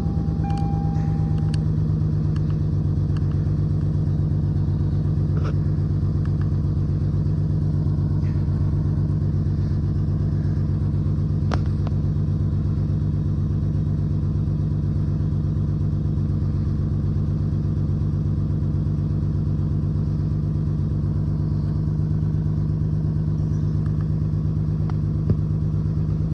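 Lexus six-cylinder engine idling steadily with a cylinder 6 misfire, which the scan tool reports.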